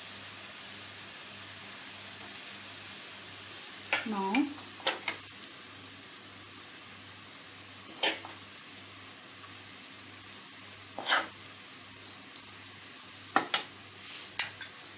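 Faint, steady sizzle from the oiled pan on a low flame beneath the rice layer. Spoonfuls of kofta masala are dropped onto the rice, with sharp clicks of the spoon against the pan several times over.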